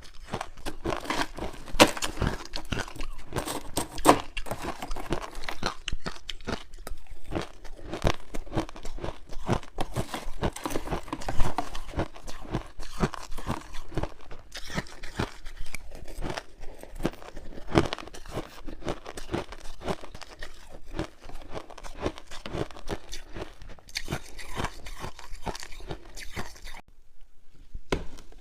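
Close-up crunching of frozen passion fruit ice being bitten and chewed: a dense run of sharp, irregular cracks and crackles, with a brief pause near the end.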